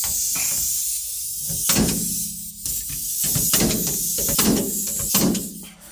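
Background music with a steady beat, a stroke roughly every 0.8 seconds.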